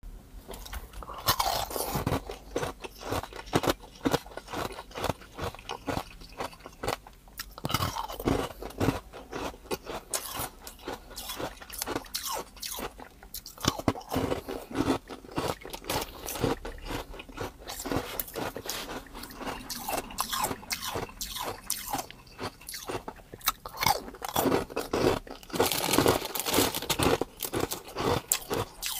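Hard ice cubes being bitten and chewed: a continuous, irregular run of sharp crunches and cracks.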